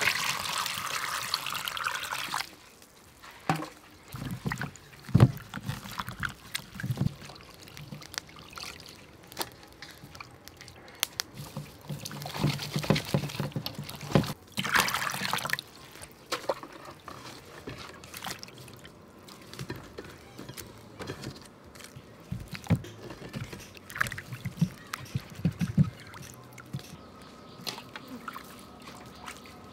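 Water splashing and trickling as lemongrass and other herbs are washed by hand in a bowl of water, with a rush of pouring water in the first couple of seconds and again about halfway through, and scattered knocks.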